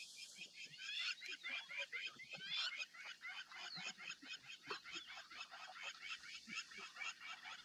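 Dense chorus of many birds chirping, with short high chirps overlapping several times a second and some quick sliding notes.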